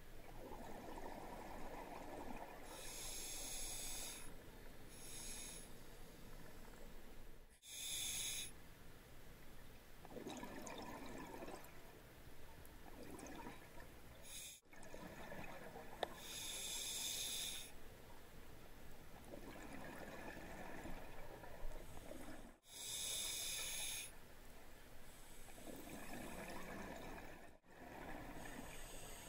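Scuba diver breathing through a regulator underwater: a short hissing inhale, then a longer bubbling exhale, about four breaths in all.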